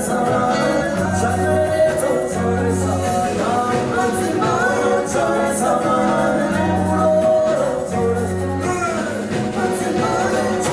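Live band music: two women singing over electric bass guitar and drums.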